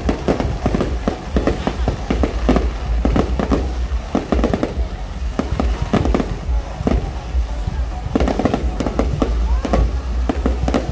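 Aerial fireworks going off in a dense, continuous barrage of bangs and crackles over a deep low rumble.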